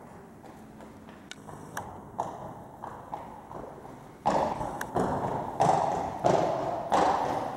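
Palomino pony's footfalls on indoor arena sand. At first there are only faint scattered ticks. About four seconds in, a loud, regular beat of short strokes starts, roughly every two-thirds of a second, and runs on.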